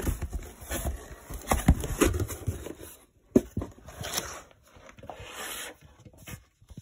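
Shrink-wrapped skateboard deck being handled and slid out of a cardboard box: irregular scraping and rustling of cardboard and plastic wrap, with several sharp knocks.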